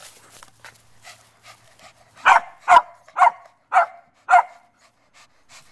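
A small dog barking five times in quick succession, about two barks a second, in play during a tug game with a rope toy. Faint rustling comes before the barks begin about two seconds in.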